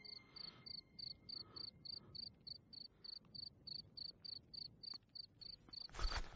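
Cricket chirping steadily, a faint high pulse repeating about four times a second. Just before the end there is a brief swell of noise.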